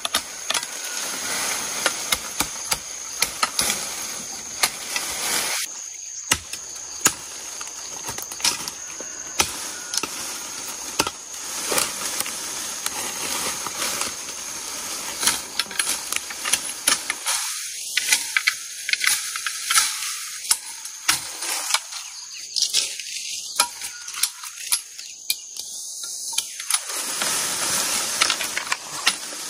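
Bamboo being cut and handled with a machete: irregular sharp chops and knocks of blade and bamboo poles over steady rustling of leaves and brush.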